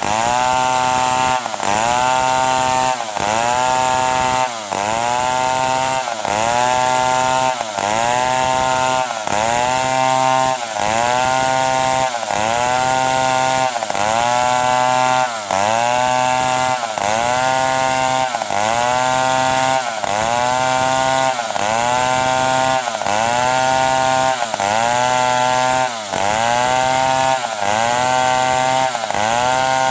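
Stihl 070 chainsaw, a large two-stroke, running hard while cutting wood. Its engine note dips and climbs back in a regular cycle about every second and a half.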